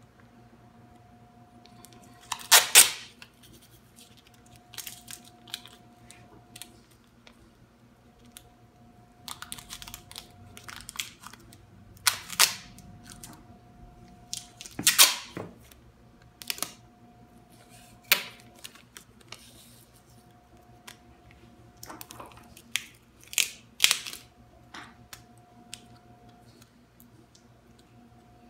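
Clear packing tape being pulled off its roll in short, loud rips, about half a dozen times at uneven intervals, with quieter crinkling and handling of the tape in between.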